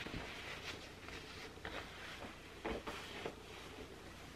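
Faint rustling and a few soft taps of denim jeans being handled, over a low steady room hum.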